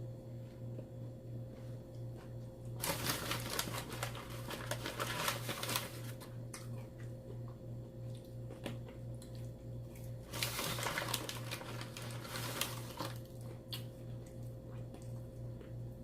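Crunching from eating crispy fried chicken close to the microphone, in two spells about three seconds in and again about ten seconds in. A steady low hum runs underneath.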